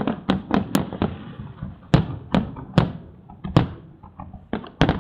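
Aerial firework shells bursting in an irregular series of sharp bangs, with a rumble and crackle between them. The bangs come quickly in the first second, then about every half second, with a short lull before the last ones near the end.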